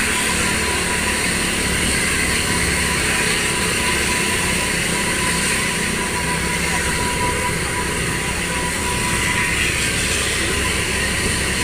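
Steady vehicle noise on the move, an even rumble and rush with a thin steady tone running through it that fades near the end.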